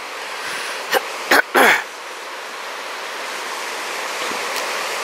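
River Lyn rushing steadily over boulders in its rocky bed. A few short, louder sounds break in about one to two seconds in.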